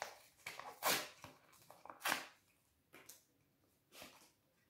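A sheet face-mask packet being torn and crinkled open: two sharp rips about a second apart, then a couple of softer rustles.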